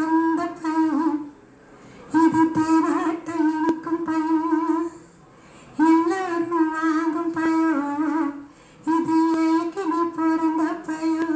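A woman humming a slow wordless tune into a microphone, in held phrases of a few seconds with short breaths between them, played back through a television's speaker.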